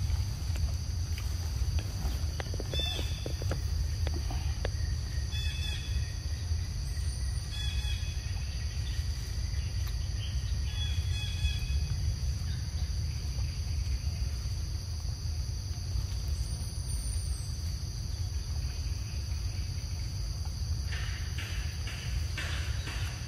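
Forest ambience: a steady, high insect drone, with a low rumble underneath and short bird chirps every few seconds.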